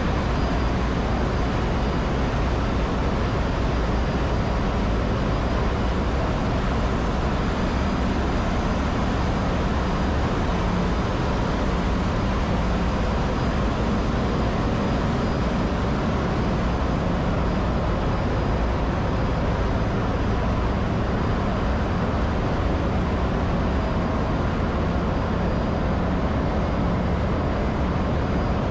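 Steady, loud machinery din of a ship's engine room, many machines running together with no change, with faint steady whines over a deep rumble.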